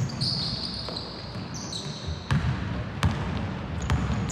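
Basketball game on a hardwood gym floor: sneakers squeak on the court and a basketball bounces several times in the second half as a player dribbles.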